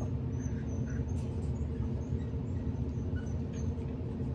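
A steady low motor hum, with faint, short high-pitched puppy squeaks scattered over it.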